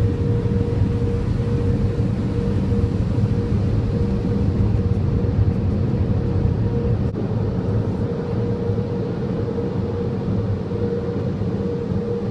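Car running, a steady low drone heard from inside the vehicle, with a faint steady hum above it.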